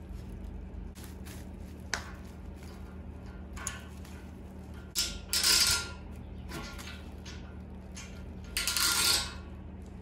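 Handling noise while a fitting is screwed into the end of a column radiator with a screwdriver: a click, then short bursts of bubble-wrap rustling and light metal clinks, over a steady low hum.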